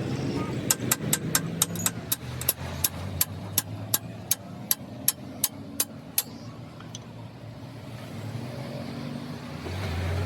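A hammer striking metal in quick, even blows, about three or four a second, stopping about six seconds in, over a low steady hum.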